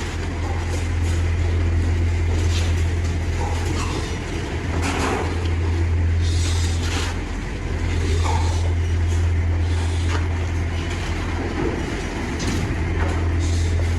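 A steady low machine hum with scattered clatter and banging. Piglets squeal briefly a few times.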